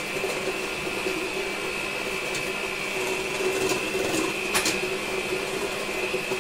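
Electric hand mixer running steadily with a high whine, its beaters whisking a thin liquid mixture of eggs, sugar and melted butter in a stainless steel pot. A brief click sounds near the middle.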